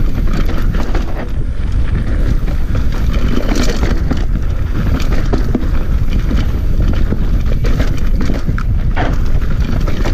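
Mountain bike descending a rough dirt trail at speed: tyres running over dirt and rocks, with frequent knocks and rattles from the bike over the bumps and wind rushing over the microphone.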